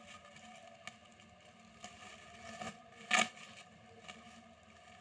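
Plastic packaging and clothing being handled: soft rustling and crinkling with a few small clicks, and one louder crinkle about three seconds in.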